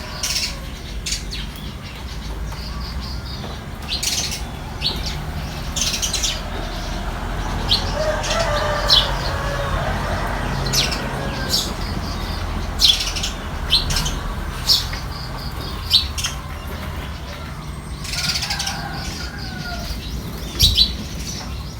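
Birds chirping: short sharp calls repeated at irregular intervals, with softer warbling now and then, over a low steady background rumble.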